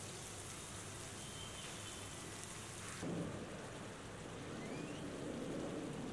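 Steady hiss of food sizzling in hot oil in a cooking pan; about three seconds in the high hiss eases and a lower, fuller sizzle takes over.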